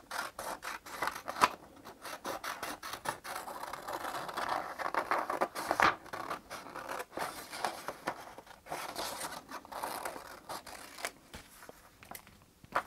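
Scissors cutting through paper: a long run of quick snips with the rasp of the blades closing through the sheet, thinning out near the end.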